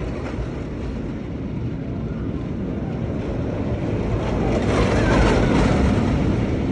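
Steel roller coaster train running along its track, a steady rushing noise that swells from about four seconds in as the train comes through the loop.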